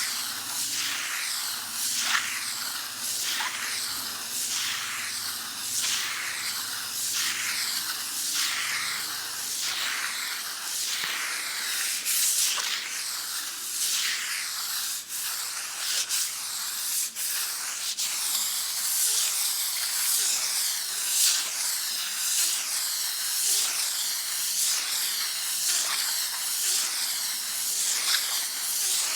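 Sandpaper rubbed back and forth on a wall: a steady, rhythmic rasping hiss, about three strokes every two seconds.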